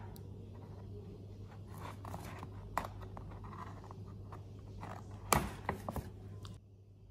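Scissors cutting a stiff, plastic-like sticker seal and ribbon on a paper shopping bag: scattered small clicks and paper rustles, with the loudest snips about five seconds in.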